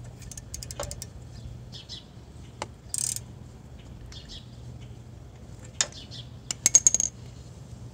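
Socket ratchet clicking and clinking against metal while tightening an exhaust manifold bolt. The clicks are scattered, and near the end comes a quick run of sharp clicks, the loudest sound here.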